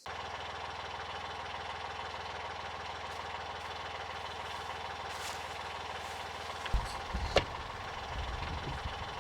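Narrowboat engine idling steadily with an even low chug. Two sharp knocks about half a second apart come around two-thirds of the way through, followed by a few softer knocks.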